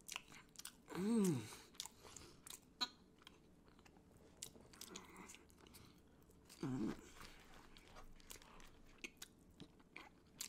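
A man quietly chewing a mouthful of oxtail mac and cheese sandwich on coco bread, with soft wet mouth clicks and smacks. Two short hummed "mm" sounds come about a second in and near seven seconds in.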